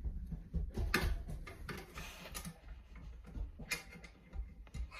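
Handling noise of a phone held close to the microphone: scattered light taps, clicks and rustles, with a faint low rumble.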